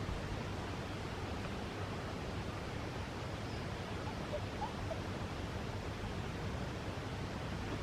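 Steady outdoor background noise, an even hiss with no distinct events, with a few faint short chirps about halfway through.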